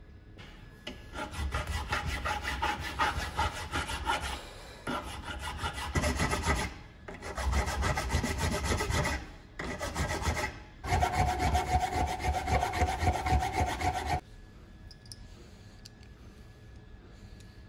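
A small steel drill-chuck jaw being hand-finished: metal rubbed quickly back and forth against an abrasive in rapid scraping strokes, in a few bouts with short pauses, with a faint squeal in the last bout, then the strokes stop.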